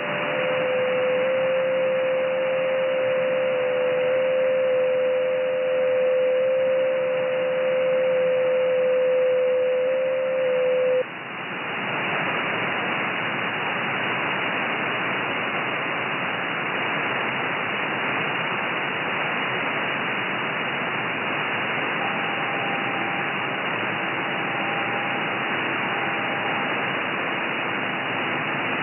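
Shortwave receiver audio in upper sideband on the 30 m amateur band: steady band-limited hiss with two faint, steady, whistle-like JT9 digital-mode tones that stop about eleven seconds in, as that minute's JT9 transmissions end. The hiss then gets louder, and a new set of faint JT9 tones begins about twenty-two seconds in, at the start of the next transmission period.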